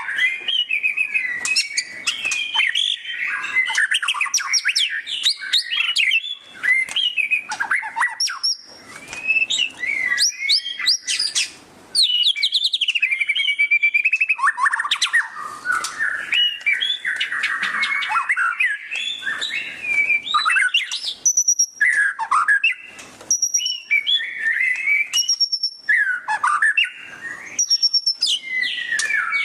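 White-rumped shama (murai batu) singing loudly in a fast, unbroken run of varied whistles, chirps, sweeping notes and chattering trills, the 'ngeriwik' style of song. There are brief pauses about a third of the way in.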